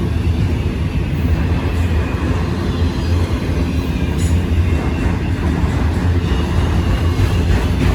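Freight train cars rolling past close by: a steady low rumble of steel wheels on rail, with no pause or change.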